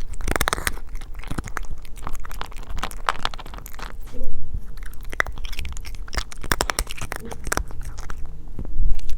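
Cat eating dry food, with quick irregular crunches and chewing of kibble, a little louder about four seconds in.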